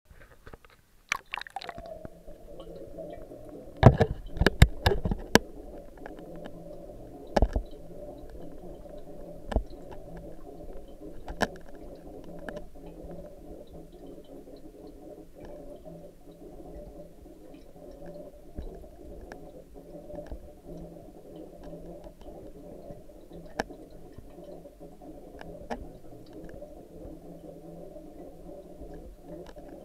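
An action camera goes under the water of a fish tank at about a second in. It then records a steady, muffled low rumble of the water through its housing, with a quick run of sharp knocks about four to five seconds in and single knocks now and then after that.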